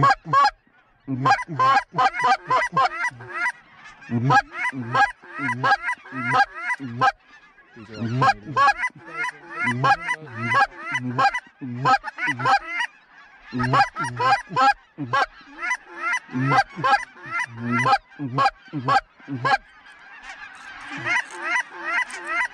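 Goose honks and clucks in fast, loud runs of several calls a second, broken by brief pauses every few seconds.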